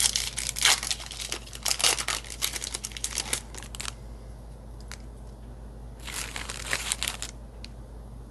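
Plastic booster pack wrapper crinkling and tearing as a new pack of trading cards is opened: a crackling stretch of about four seconds, then a shorter burst about six seconds in.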